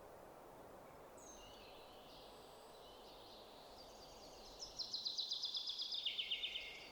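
Faint outdoor background hiss with a few high bird chirps, then a small bird's rapid trill starting about four and a half seconds in, which drops to a lower pitch partway through.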